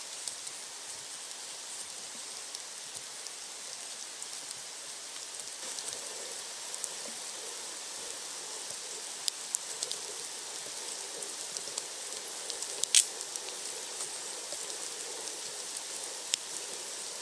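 Steady rain falling in woodland, an even hiss. A few sharp clicks and ticks sound over it, the loudest about three-quarters of the way through.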